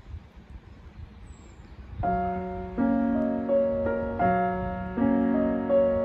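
Slow, gentle piano music begins about two seconds in and carries on, its notes changing roughly once a second. Before it there is only a faint steady rushing noise.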